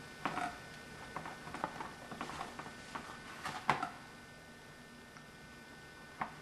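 Fingers pressing soft pie-crust dough into a ceramic pie bowl: irregular light taps and soft squishes, mostly in the first four seconds, then quieter.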